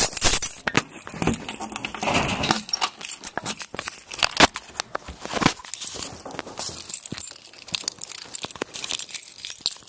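Rustling and clicking from a recording device being carried and handled, its microphone rubbing against fabric, in a dense, irregular patter with a louder scrape about two seconds in.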